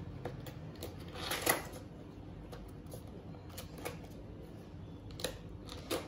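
Faint off-screen handling noise: a few scattered light clicks and a brief rustle about a second and a half in, over a low steady hum.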